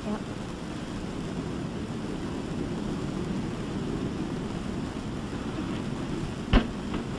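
Steady low rumbling background noise, typical of an old film soundtrack, with one sharp click about six and a half seconds in.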